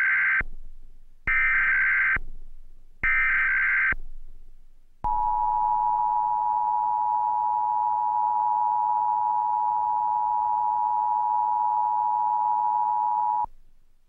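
Emergency Alert System SAME header: three short, buzzy digital data bursts, the first already under way, encoding a Required Monthly Test. About five seconds in, the EAS two-tone attention signal starts and sounds steadily for about eight seconds before cutting off near the end.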